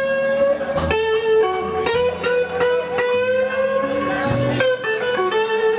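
Live blues band playing an instrumental break: an electric guitar lead with long held notes over a bass line, with drum hits.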